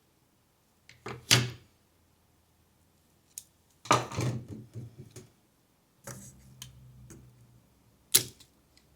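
Tools and parts being handled at a workbench: a sharp knock, a clattering run of knocks and scrapes, and another sharp knock near the end.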